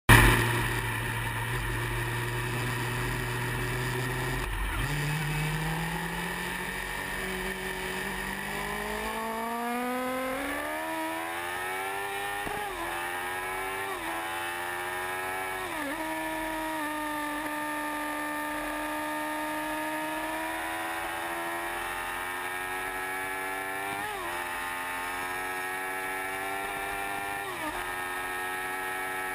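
Yamaha R1's inline-four engine pulling hard through the gears: its pitch climbs steadily and drops sharply at each upshift, about six times, and holds fairly steady for several seconds in the middle.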